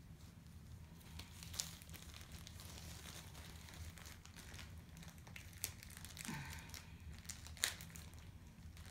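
Faint crinkling of plastic packaging being handled, with a few sharp crackles scattered through.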